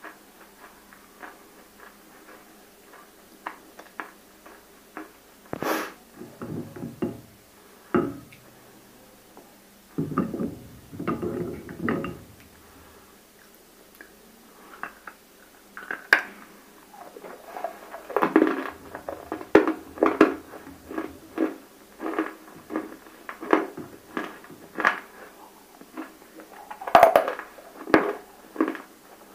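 Close-miked crunching and chewing of water-soaked, full-roasted baked clay (nakumatt). It starts with scattered crackles and a few loud bites, then settles into a run of crisp crunches about once or twice a second in the second half.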